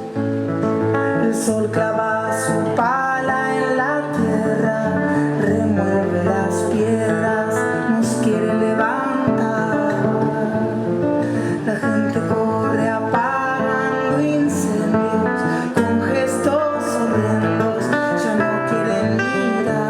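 Music: acoustic guitar playing under sustained melodic lines that slide up in pitch several times.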